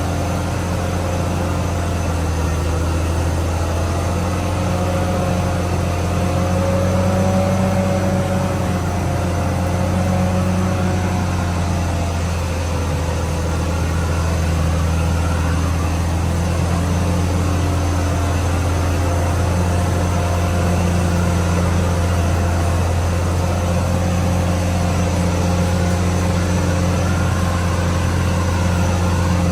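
CAT D6R XL bulldozer's diesel engine running at a steady speed, with a strong low hum. A wavering whine rides over it during roughly the first half.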